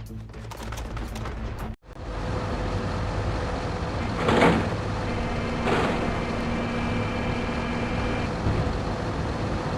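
Excavator's rock saw attachment running and cutting rock: a steady machine rumble, two short harsh grinding bursts about halfway, then a held whine for about three seconds.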